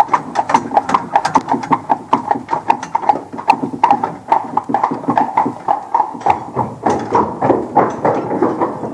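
Hooves of a two-horse buggy team clip-clopping in a fast, steady run of knocks. The hooves go from the paved road onto the wooden plank deck of a covered bridge partway through.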